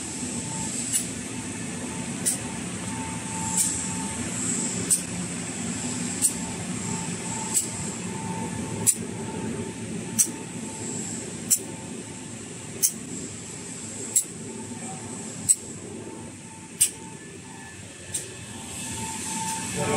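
Paper towel rewinding line machinery running at steady speed: a continuous mechanical hum with a sharp, evenly spaced click about every 1.3 seconds.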